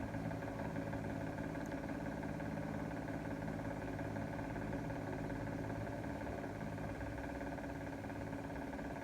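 A motor running steadily, a constant hum made of several steady tones with no change in speed.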